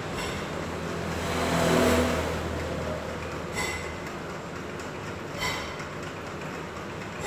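A passing motor vehicle: engine and road noise swell to a peak about two seconds in and then fade, over a steady background hum. Two short clicks come later.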